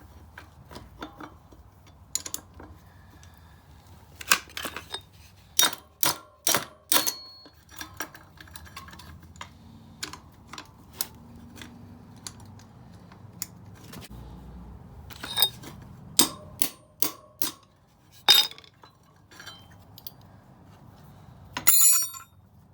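Metal hand tools clinking and tapping against metal motorcycle brake parts: a long string of sharp, irregular clinks, some ringing briefly, with a quick rattle of clicks near the end.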